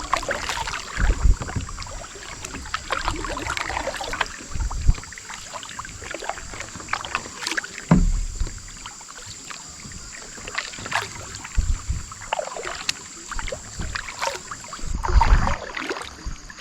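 Fishing kayak's paddle strokes splashing in river water, uneven in rhythm, with several dull thumps.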